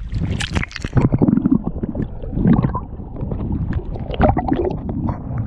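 Water splashing as the camera plunges into shallow seawater. About a second in the sound turns muffled, with underwater sloshing and gurgling.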